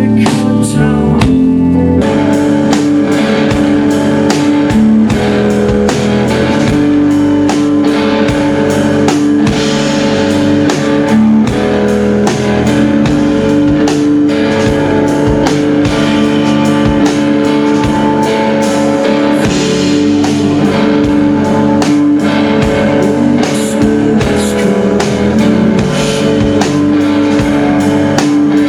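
Rock band playing loudly, with guitars sustaining chords and a drum kit keeping a steady beat that comes in about two seconds in.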